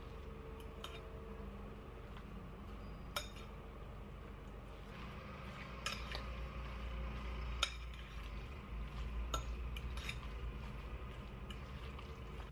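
Metal fork stirring shredded salad in a glass bowl: soft stirring with a handful of sharp clinks of the fork against the glass.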